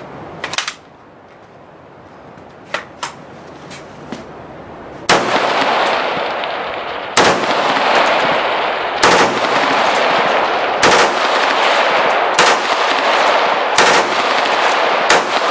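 AR-15-style rifle fired in slow single shots: seven loud shots about one and a half to two seconds apart, starting about five seconds in, each followed by a long rolling echo. A few faint clicks come before the first shot.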